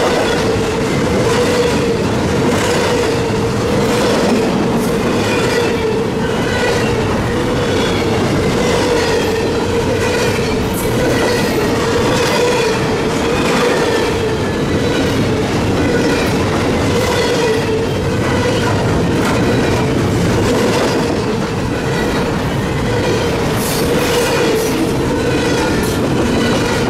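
Double-stack container well cars of a Norfolk Southern intermodal freight train rolling past close by: a loud, steady rumble of steel wheels on rail with a rhythmic clickety-clack, and a steady tone running through it.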